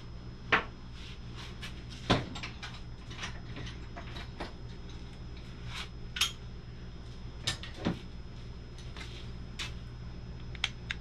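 Scattered metallic clinks and clatters of hand tools being picked up and handled, the two loudest about half a second and two seconds in, over a steady low hum.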